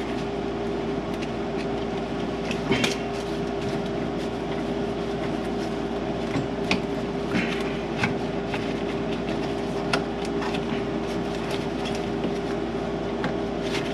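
Scattered light clicks and knocks of hand work refitting a small radiator hose and its pinched spring clamp, over a steady low mechanical hum.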